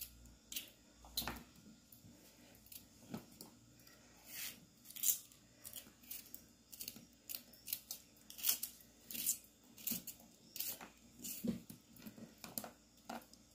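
Kitchen knife slicing through a green bell pepper held in the hand, a crisp cut about twice a second as it is chopped coarsely.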